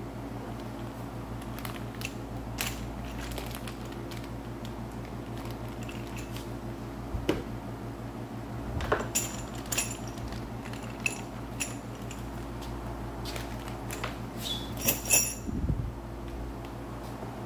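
Small steel engine parts being handled on a workbench, clinking and clattering several times, with the loudest cluster about fifteen seconds in, over a steady low hum.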